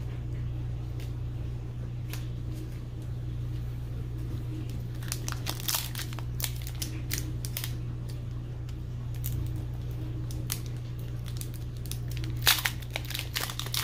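Foil wrapper of a Pokémon trading-card booster pack crinkling and tearing open in short crackly bouts, around the middle and again near the end, over a steady low hum.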